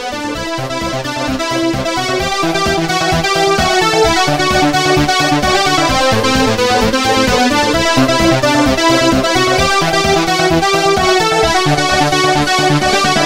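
Background electronic music with a keyboard melody over a steady beat, swelling in over the first couple of seconds.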